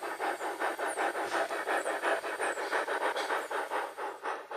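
Steady steam-locomotive chuffing from a G-scale model Shay locomotive, about six chuffs a second, fading out near the end.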